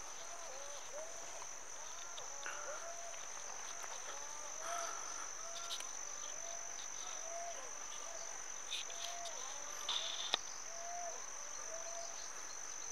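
Insects trilling in one steady, high-pitched tone, over many short, arched calls repeating about twice a second, with a single sharp click about ten seconds in.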